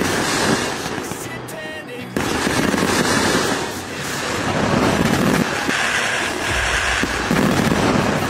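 Sky-shot fireworks bursting and crackling, with background music underneath.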